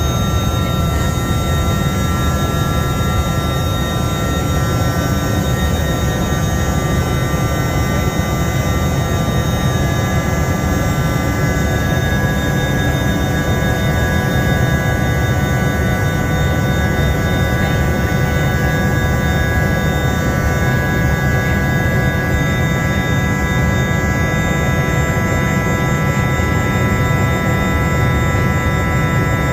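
Cabin noise of a Dornier 328JET's twin turbofans under power: a steady rumble overlaid with several high, steady whining tones.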